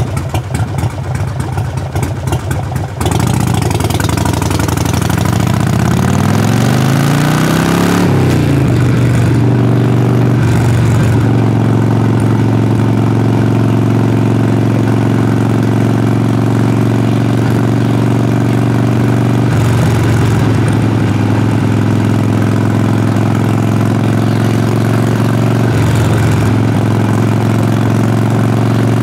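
Harley-Davidson Sportster Forty-Eight's air-cooled V-twin exhaust. It is rough and uneven at first, shifts in engine speed for several seconds, then settles into a steady, even drone.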